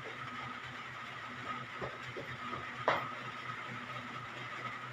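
Steady low hum and hiss with a faint steady tone, a few faint taps, and one sharp click about three seconds in.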